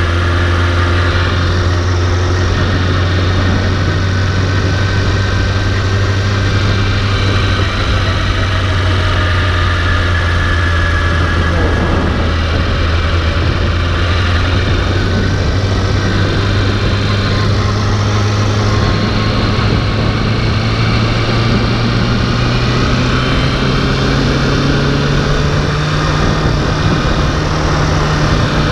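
A vehicle engine running steadily with a strong low hum. Its pitch climbs slowly over the last several seconds as the engine speeds up.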